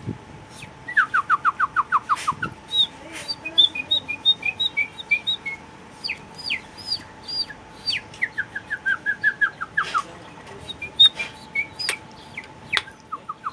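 Bird calls imitated by a person whistling: several phrases of quick, high, downward-sliding notes, about four a second, mixed with higher chirps. A faint steady hum runs underneath.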